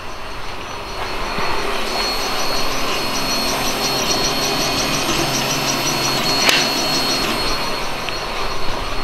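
Steady machine-like rushing noise with a thin high whine and faint rapid ticking over it.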